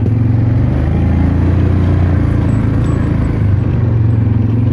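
Yamaha Grizzly 400 four-wheeler's single-cylinder four-stroke engine running as it is ridden along, its note dropping lower about a second in and rising back up near the end.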